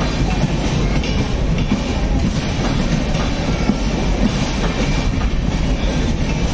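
Passenger train coaches rolling past at close range: a steady rumble with wheels clattering over the rail joints.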